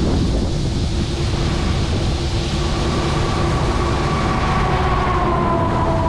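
John Deere 7720 Titan II combine, with its turbocharged six-cylinder diesel, running under load while its unloading auger empties shelled corn into a gravity wagon. It makes a steady heavy rumble, and a whine comes in a couple of seconds in and sags slightly in pitch near the end.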